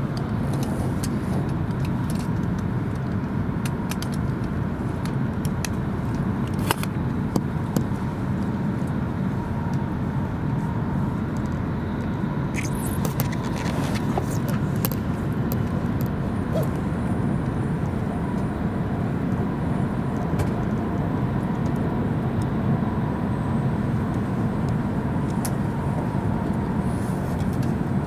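Steady running noise inside the cabin of an E5 series Shinkansen: an even low rumble and rush from the moving train, with scattered faint clicks and ticks.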